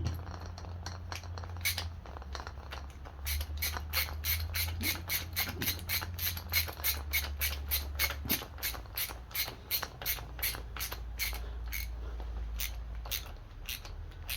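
Hand tool ratcheting as a screw is turned into the chainsaw's ignition coil mount: an even run of sharp clicks, about three a second, after the first few seconds. The screw keeps turning without getting tight. A steady low hum runs underneath.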